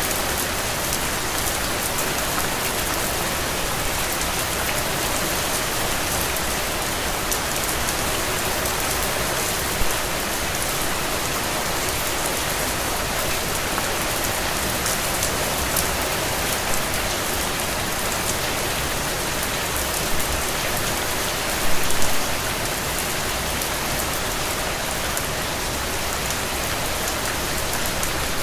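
Steady rain falling, a continuous hiss with scattered louder drop splats, a small cluster of them about 22 seconds in.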